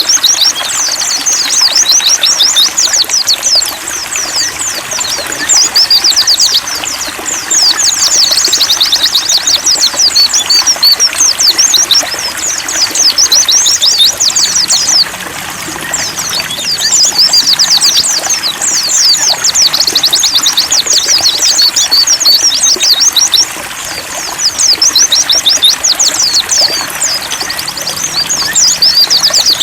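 White-eyes (pleci) singing rapid, high twittering phrases with brief pauses between them, over trickling water.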